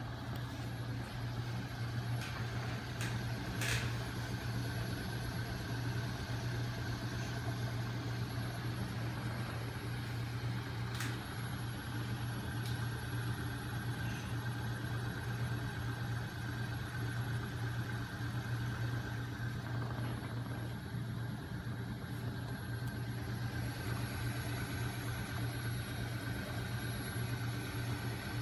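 Homemade magnet-engine rig running: a small 12 V electric motor spinning a 5 kg flywheel and crankshaft, a steady mechanical hum. A couple of brief clicks stand out, about four and eleven seconds in.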